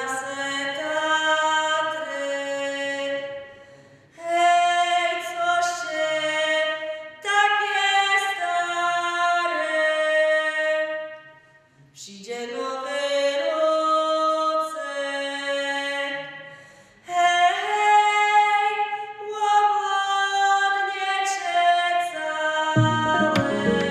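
Unaccompanied singing in long phrases of held notes, with short breaths between phrases. Instruments with a low bass come in near the end.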